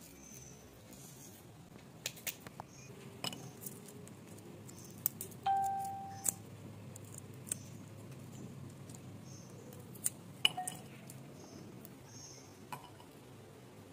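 Small kitchen knife clicking and scraping on garlic cloves and a wooden chopping board as the cloves are peeled by hand, with scattered light ticks of papery skin. About halfway through comes a brief ringing tone that fades within half a second.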